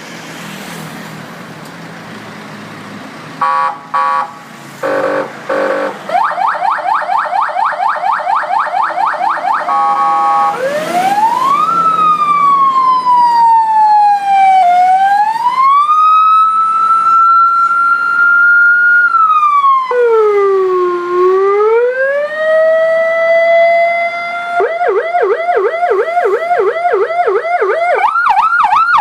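Electronic emergency-vehicle siren cycling through its tones: a few short horn blasts, then a fast repeating yelp, slow rising and falling wail sweeps, and near the end a rapid warble.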